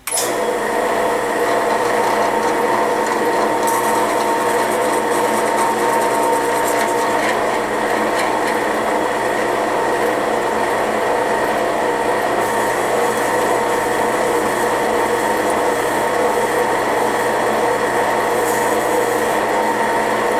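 Drill press running steadily, its 3/32-inch bit drilling a hole lengthwise through the center of a 1/4-20 screw.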